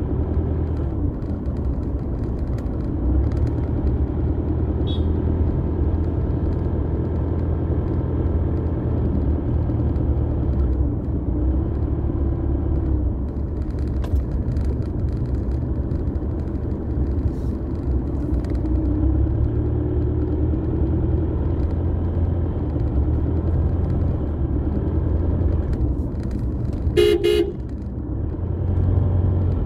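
Car running at low road speed, heard from inside the cabin as a steady low engine and tyre rumble. Near the end a car horn gives a short, pulsing toot.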